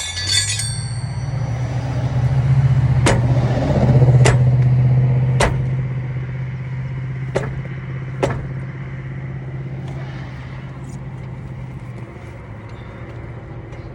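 A motor vehicle's engine droning low, growing louder and then fading away over about ten seconds as it passes. Five sharp clicks or knocks sound between about three and eight seconds in.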